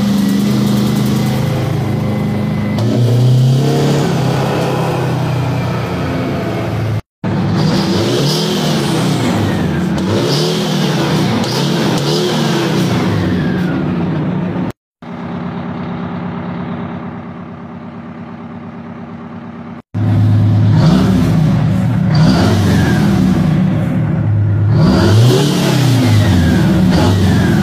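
Detroit Diesel 8V92 two-stroke V8 diesel truck engine revving up and down in repeated rising and falling sweeps, with a high whine riding over the engine note. A quieter, steadier stretch comes about halfway. The sound is in several separate clips that cut off abruptly from one to the next.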